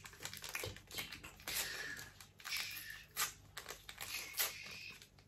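Sweet wrapper or plastic candy packaging being handled and opened: irregular crinkling with scattered small clicks.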